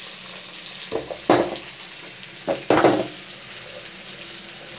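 Chopped onions, tomato, carrot and green chillies frying in hot oil in a wide kadai: a steady sizzle, with two louder bursts about one and three seconds in.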